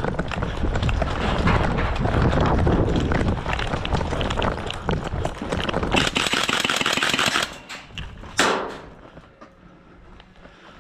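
Airsoft guns firing in rapid bursts over running footsteps and rattling gear, with the densest run of shots about six seconds in. A single sharp crack follows about eight seconds in, and after that it goes much quieter.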